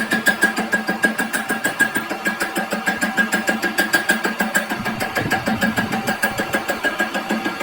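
A workshop machine running steadily with a regular pulsing beat, about four to five pulses a second, over a steady whine.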